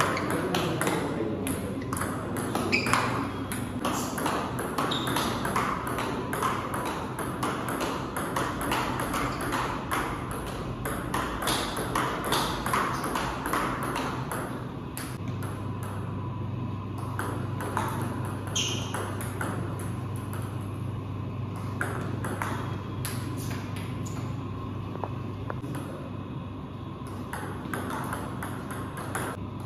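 Table tennis rallies: the ball clicking back and forth off the paddles and the table in quick irregular runs of sharp ticks, with short pauses between points. A steady low hum runs underneath and gets louder about halfway through.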